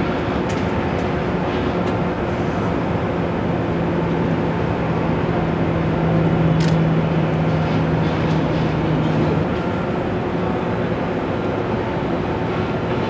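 Steady drone of heavy machinery running, with a low hum that swells for several seconds in the middle, as a crane lowers a load. A single short sharp tick comes about six and a half seconds in.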